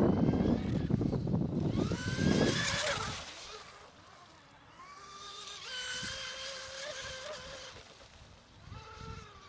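Electric RC race boats running flat out: the high-pitched whine of their brushless motors, rising as a boat comes close about two seconds in, over a loud rushing noise for the first three seconds, then a quieter steady whine that swells and fades.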